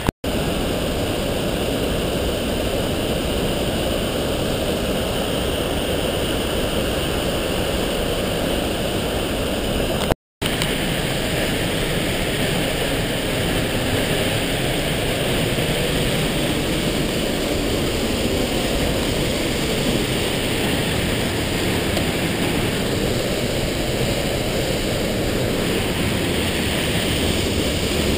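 Waterfall rushing: a steady, even wash of water noise that drops out for an instant near the start and again about ten seconds in.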